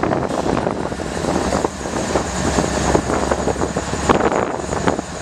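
BNSF diesel locomotives rolling slowly past at close range, their engines running with a steady low rumble and scattered short knocks from the running gear and rails.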